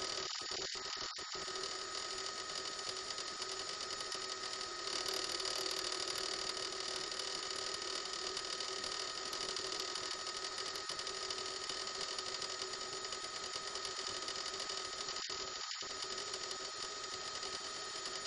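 Steady helicopter cabin noise on an open microphone: an even hiss with a constant whine, briefly cutting out in its lower part a few times near the start and once near the end.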